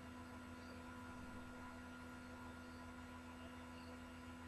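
Near silence: a faint, steady hum holding a few fixed tones, with no other sound.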